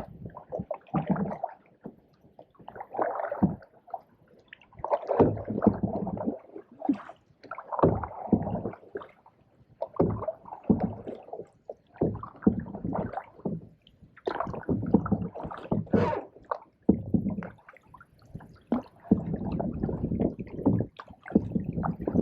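Canoe paddle strokes pulling through the water, each stroke a gurgling swirl, about one every two seconds.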